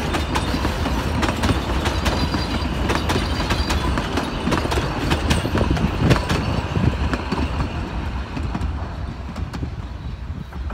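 Narrow-gauge passenger carriages of the Puffing Billy steam railway rolling past, with a steady rumble and repeated sharp clicks from the wheels over the rail joints. The sound fades after about eight seconds as the last carriage moves away.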